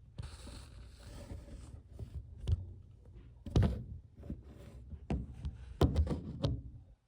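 A handful of dull thumps and knocks over rustling handling noise, the loudest about halfway through and again near the end.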